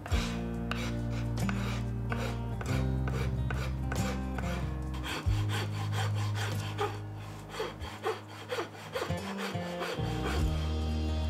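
Hand file rasping along a carved wooden axe handle in repeated push strokes, about two a second, shaping the handle.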